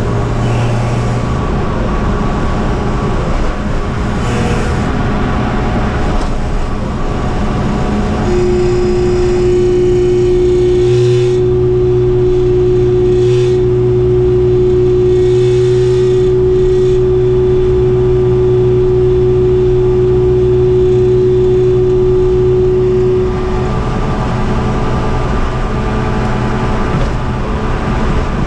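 G23-powered Honda CRX's engine and exhaust heard from inside the cabin at a steady cruise with road noise, the exhaust cutout open. A strong steady drone comes in about eight seconds in and drops away a few seconds before the end.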